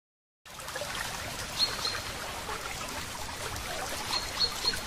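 Water trickling and splashing from a bamboo spout onto stones, starting suddenly about half a second in. A few short high chirps come twice over the water.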